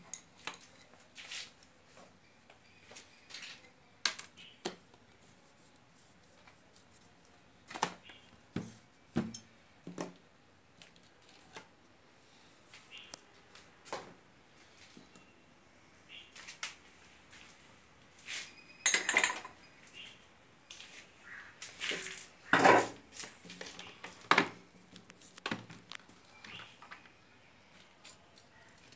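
Irregular clicks and clatter of multimeter test leads, probes and wires being handled on a metal workbench, with a cluster of louder knocks about two-thirds of the way through.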